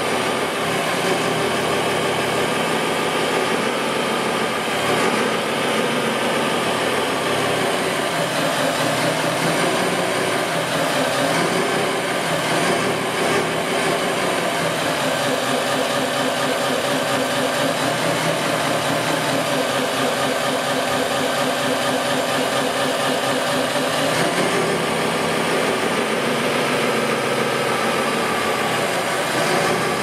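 Radio-controlled model construction machines running: a steady engine-like drone mixed with motor whine whose pitch shifts up and down from time to time.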